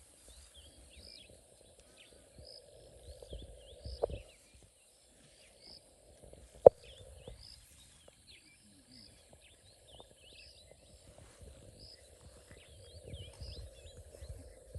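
Evening bush ambience: a steady high insect chorus with a call repeating about once a second and scattered bird chirps. Low rumbling comes and goes, and two sharp cracks stand out, the louder one about halfway through.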